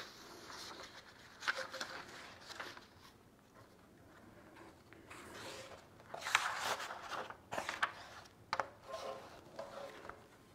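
Paper pages of a ring binder being leafed through and turned by hand, rustling in several bursts with a few sharp clicks.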